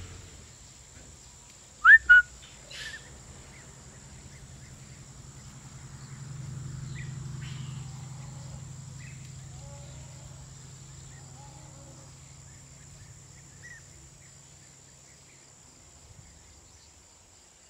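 Quiet countryside ambience with faint, scattered bird chirps. About two seconds in come two short, loud rising whistles. A low steady hum swells in the middle and then fades away.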